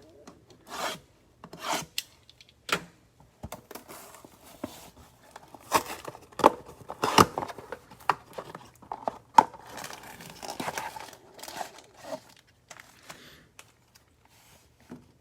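Cardboard and wrapper packaging being torn open and crinkled by hand as a box of football trading cards is opened, in a run of irregular rasping tears and sharp snaps that are loudest in the middle.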